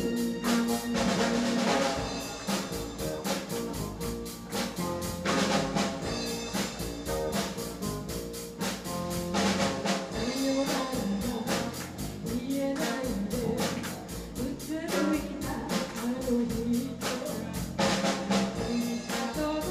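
Live rock band playing: drum kit keeping a steady, busy beat with snare and bass drum, over electric bass, electric guitar and keyboard.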